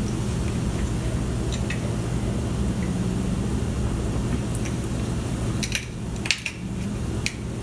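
Steady low hum of a running machine such as a fan or appliance, with a few light clicks near the end as the plastic case of an infrared thermometer is handled.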